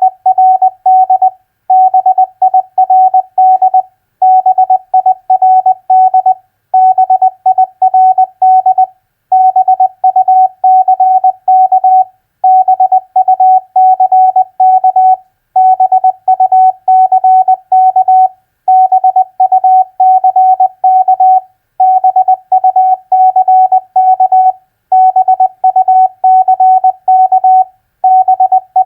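Morse code practice at 20 words per minute: a single-pitched beep keyed on and off in dots and dashes, sending four-letter words as groups of about two to three seconds with short pauses between them.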